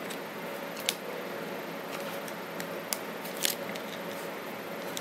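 A DJI Osmo Action 3 camera being forced out of its stock plastic frame by hand: a few short sharp plastic clicks over a steady hiss.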